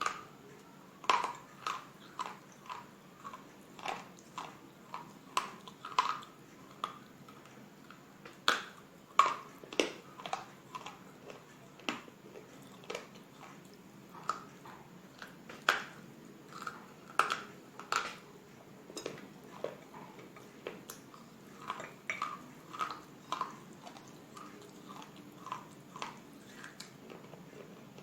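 Close-miked crunching and chewing of slate bars: sharp bites and crunches about one or two a second, growing sparser and fainter near the end.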